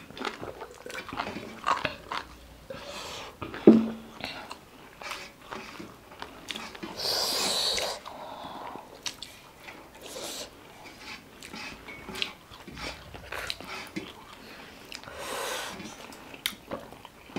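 Close-up eating sounds of people chewing and biting through a meal of rice and chicken fry, with many small clicks and crunches. A sharp knock with a brief ringing tone comes about four seconds in, and a hiss lasting about a second comes about seven seconds in.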